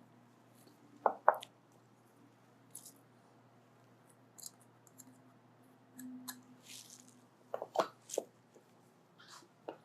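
Scattered clicks and knocks of kitchen utensils and food being handled, loudest about a second in and again in a short cluster around eight seconds in.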